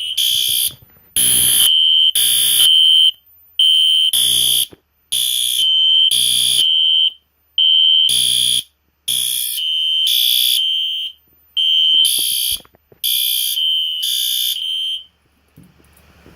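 Two System Sensor SpectrAlert fire alarm horn strobes sounding together: a SpectrAlert Advance (P2R) set to low volume and a SpectrAlert Classic set to high volume. They give so-loud, high-pitched horn blasts in a repeating on-off pattern with short silent gaps, cutting off about a second before the end.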